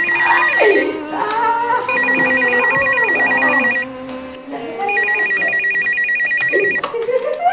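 Landline telephone ringing with an electronic trilling ring: a ring already under way ends about a second in, and two full rings of about two seconds each follow, a second apart. Soft background music plays under the rings.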